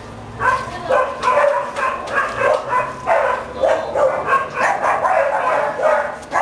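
A dog vocalizing in short, repeated sounds, about two a second, while mouthing a tennis ball.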